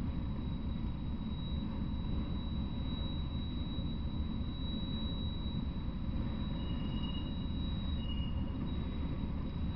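Freight train of autorack cars rolling past: a steady low rumble of wheels on rail, with two short high-pitched squeals about two-thirds of the way through.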